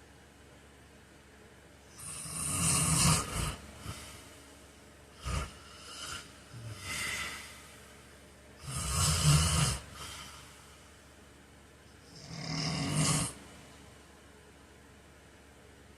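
A heavy-set man snoring in his sleep: three loud snores a few seconds apart, with quieter breathing sounds between them.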